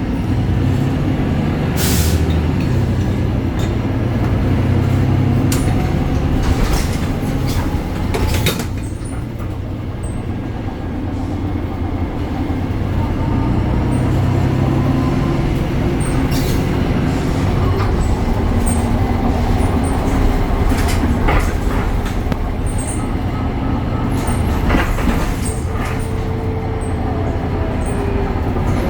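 BredaMenarinibus Avancity Plus city bus under way, its Deutz diesel engine running with a steady low drone that eases off about ten seconds in and builds again. A handful of sharp knocks and rattles come every few seconds.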